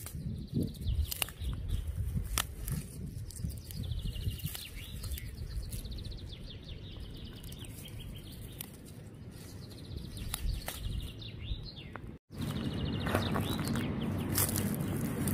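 A songbird singing rapid, high trills with a few short falling notes, over scattered sharp clicks and rustles. Near the end the sound cuts out for an instant and comes back as a louder, rough rustling noise.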